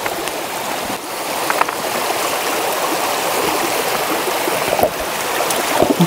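Mountain valley stream rushing steadily over rocks, a continuous even water noise.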